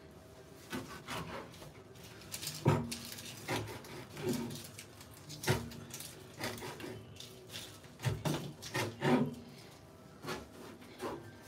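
Irregular knocks and scrapes of kitchen work: a knife striking a plastic cutting board and kitchenware being handled and set down on the counter, with a few heavier thuds.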